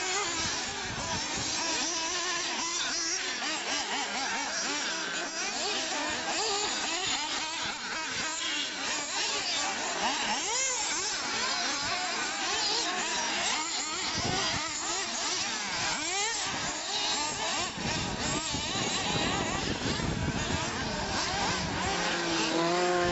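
Several small nitro engines of 1/8-scale radio-controlled off-road buggies racing. Their high-pitched whines overlap and rise and fall as the cars accelerate and slow around the track.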